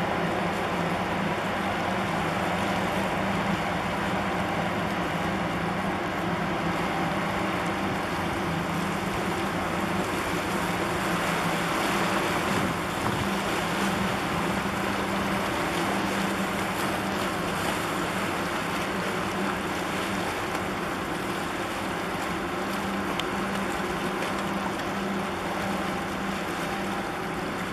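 A boat's engine running steadily with a constant low hum, over a continuous rush of water.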